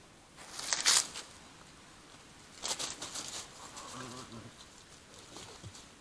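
European badgers at close range: two loud scuffling, rustling bursts as a badger brushes against the trail camera, about a second in and about three seconds in, then a brief low grunt at around four seconds and softer scuffles.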